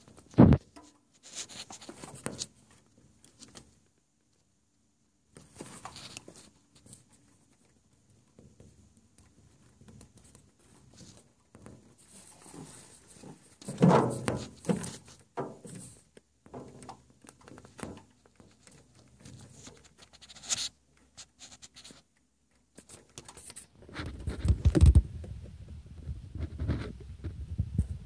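Handling noise from a handheld phone: scattered knocks and rubbing on the microphone, with a louder cluster about halfway through and low rumbling in the last few seconds.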